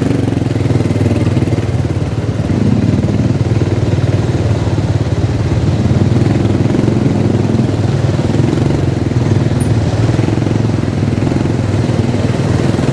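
Motorcycle engine running steadily while riding, with an even, unbroken drone.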